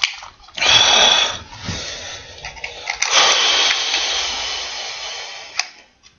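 Rough scraping and grinding on a plastic smoke alarm being forced open by hand, in two stretches: a short loud one near the start and a longer one from about halfway that fades out.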